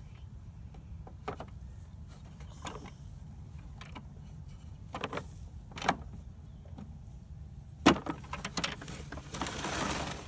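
Toy backhoe being worked in sand: scattered knocks and clicks, the loudest about eight seconds in, over a steady low hum, with a scraping hiss near the end.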